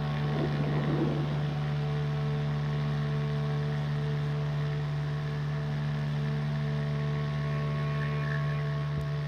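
A steady low drone with several fixed tones stacked above it, with a brief rustle about a second in.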